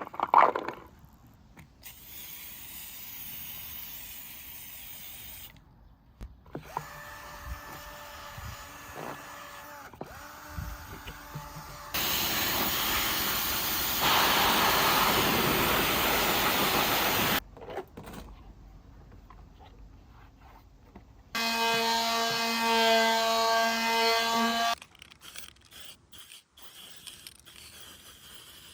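Power tools run in short separate spells, typical of workshop restoration work. One spell has a steady tone, the loudest is an even rushing noise about five seconds long, and a later, shorter spell has a strong steady whine.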